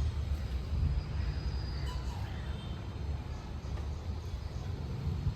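Outdoor background: a steady low rumble, with a few faint high bird chirps about one to two seconds in.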